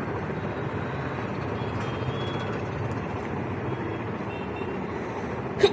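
Steady background noise, then a person sneezes sharply right at the end.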